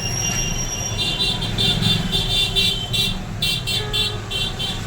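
Street traffic with repeated high-pitched toots, such as a vehicle horn, starting about a second in over a steady low rumble.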